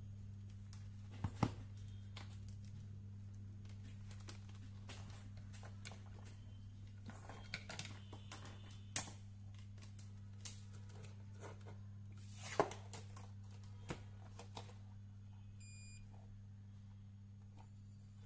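Scattered clicks and knocks as a CRT monitor circuit board and a multimeter are handled on a workbench, over a steady low hum. A brief high beep sounds a couple of seconds before the end.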